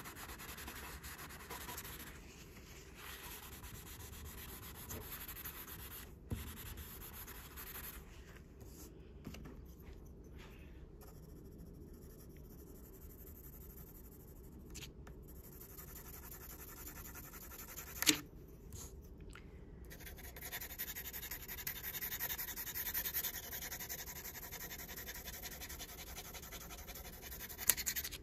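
Graphite pencil rubbing back and forth on drawing paper as an area is shaded, a scratchy sound that fades for a stretch in the middle. A sharp tap about 18 seconds in and another near the end.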